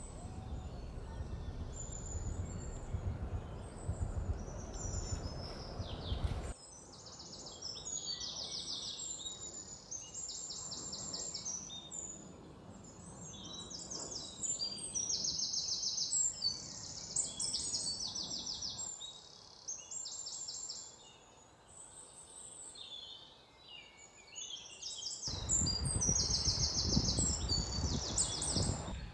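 Several small songbirds singing and chirping in quick, repeated high phrases. A low rumble sits under them for about the first six seconds and again in the last four, cutting in and out abruptly.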